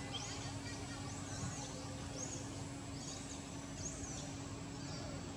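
Baby macaque giving short, high-pitched squeaky cries, each rising and falling, repeated about every half second to second, over a steady faint low hum.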